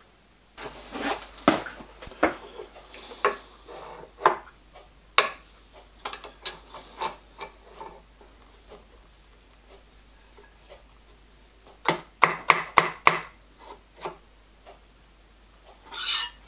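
Steel tools and workpiece handled on a milling machine's angle vise: scattered metallic clicks and knocks, a quick run of clicks about twelve seconds in, and a short scrape near the end.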